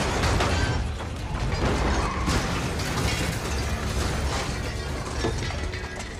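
Film sound effects of cars crashing and tumbling over on a street: crunching metal, breaking glass and rattling debris over a deep rumble, with a music score underneath.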